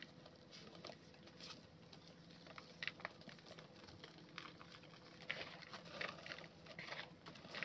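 Dry white clay lumps crumbling between bare hands, with irregular small crunches and crackles as crumbs and powder patter down into a basin of clay dust; the crackling grows busier in the last few seconds.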